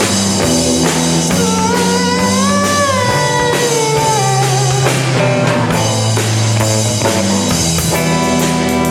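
Rock band playing live on drum kit and guitar in an instrumental stretch between sung lines, with a sliding melodic line about two seconds in.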